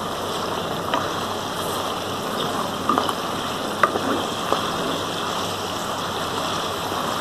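Mutton pieces sizzling steadily in hot oil in a karahi on high flame, with a few light clicks of a spatula against the pan as the meat is stirred.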